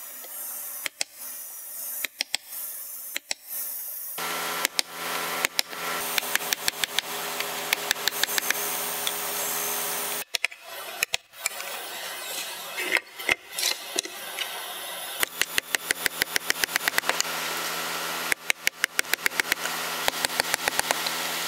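Hammer striking a steel chisel to chop mortises in a block of red hardwood: runs of sharp knocks, about four to five a second, with short pauses between runs. A steady low hum sits under most of it.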